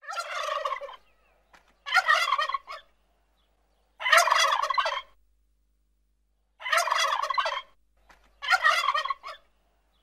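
Domestic turkey tom gobbling: five gobbles of about a second each, spaced a second or two apart.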